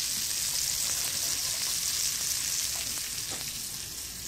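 Fish fillet sizzling as it fries in hot oil in a nonstick frying pan: a steady hiss that eases slightly near the end.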